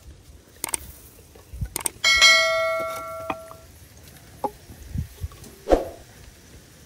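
Knocks and clatter of cooking pots and utensils while food is tipped out onto a plate. About two seconds in, a metal dish is struck and rings for about a second and a half.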